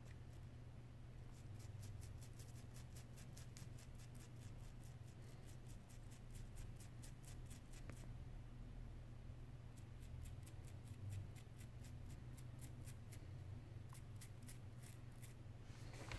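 Faint, rapid scratching as a small metal tool scrapes at a tiny iPhone 6 part, about four strokes a second, in several runs with short pauses, over a low steady hum.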